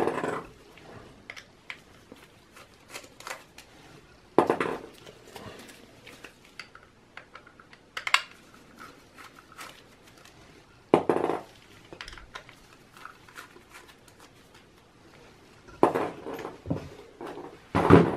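A 3.5-inch hard drive being handled and worked out of its bay in a steel PC case: sharp metallic clicks and knocks, about six loud ones a few seconds apart, with lighter ticks and handling noise between.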